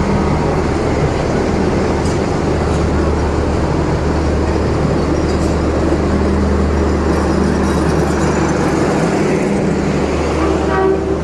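Kumbha Express passenger train at a station platform, giving a steady low rumble with a continuous hum.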